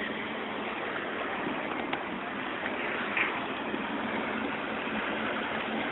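Steady rushing noise aboard a river boat under way, water and motion noise with no distinct engine tone.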